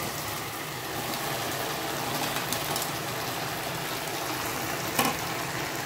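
Thick chilli-Manchurian sauce sizzling steadily in a hot pan as fried baby corn is mixed in, with one sharp knock about five seconds in.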